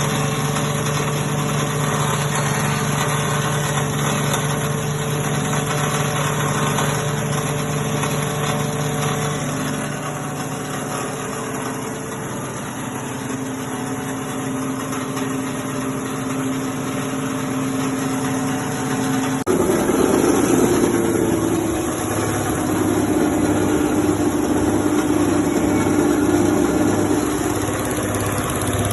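Rice husk machine running with a steady mechanical hum. About twenty seconds in the sound changes abruptly to a lower pitch with an even pulsing beat.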